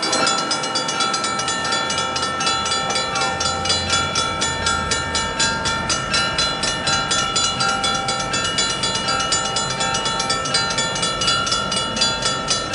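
Railroad crossing warning bell ringing in rapid, even strikes, the sign that a train is approaching the crossing.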